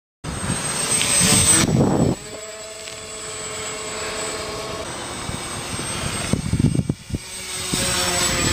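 RC model airplane's motor and propeller running in flight, a steady drone after a loud rush of noise in the first two seconds, with a few knocks about seven seconds in.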